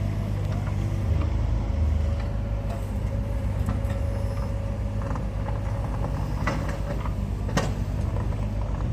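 An engine running steadily with a low drone, with a couple of sharp knocks or clanks near the end.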